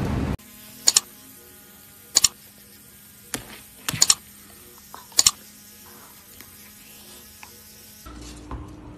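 Loud aircraft cabin noise that cuts off within the first half second, then a golden retriever gnawing on a plastic toothbrush: sharp clicks and scrapes of teeth on plastic about once a second, over a faint steady hum.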